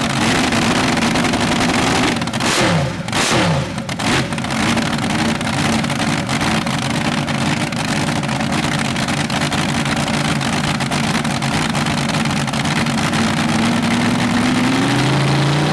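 Supercharged big-block Chevrolet V8 running on alcohol through open headers, on a test stand during the freshly built engine's first run. It runs steadily, takes two sharp throttle blips whose revs fall back about two and a half to four seconds in, and its revs climb steadily near the end.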